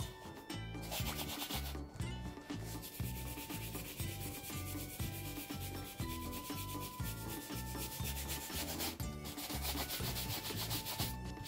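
Wooden-backed bristle shoe brush rubbing briskly back and forth over the leather of an Allen Edmonds wingtip shoe, in fast strokes with a few short pauses. Quiet background music with a steady beat plays underneath.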